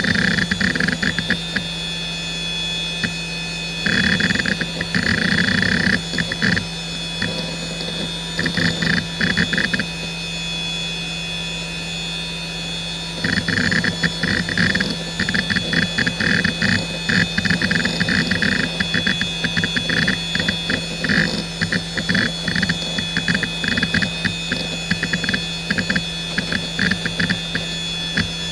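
Hitachi DK32CJ-36MC 10,000 RPM SCSI hard drive under boot load: irregular bursts of rapid head-actuator seek clicking over a steady spindle whine, with a lull of a few seconds before the seeking turns dense and continuous from about thirteen seconds in. The spindle bearings are audibly worn, though the drive is in perfect health.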